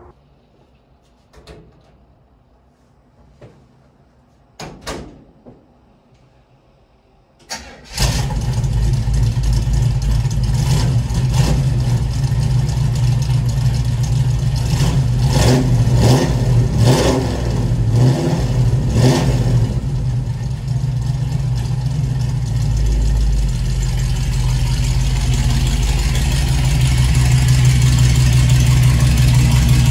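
A few faint clicks, then about eight seconds in an engine starts with a sudden loud catch and keeps running steadily.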